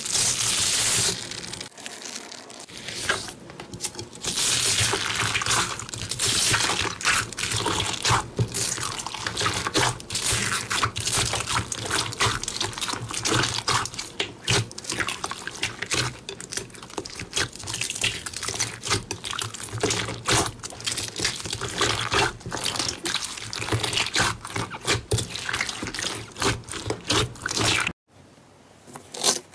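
Hand squeezing and kneading a bowl of glossy slime mixed with foam beads: wet squelching with many small irregular crackles and pops. It stops suddenly near the end.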